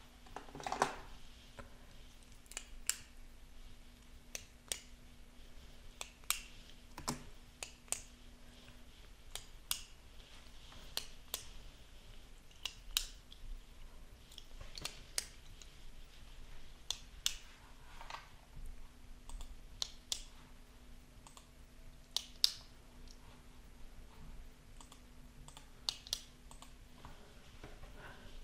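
Pen writing on a paper notepad on a wooden desk: sparse, irregular ticks and short scratches about one every second or so, with a louder knock about a second in. A faint steady hum comes and goes underneath.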